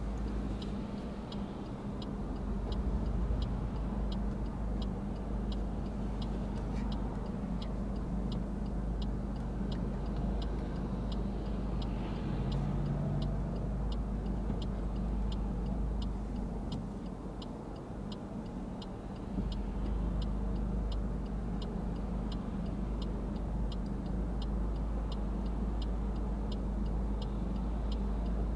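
Car's turn-signal indicator ticking steadily, about one and a half ticks a second, for the right turn, over the low hum of the car and traffic.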